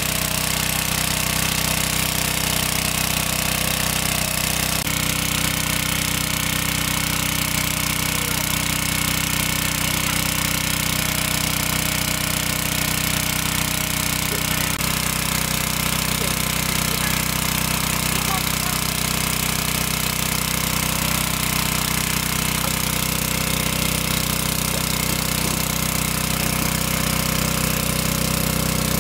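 Small engine-driven portable water pump running steadily at constant speed, drawing water from a pond through its suction hose, with the hiss and splash of its high discharge jet.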